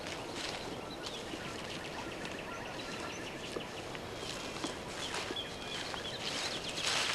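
Small songbirds singing in spring woodland: a rapid trill of quick high notes about a second in, then short whistled notes. A brief noisy rush near the end.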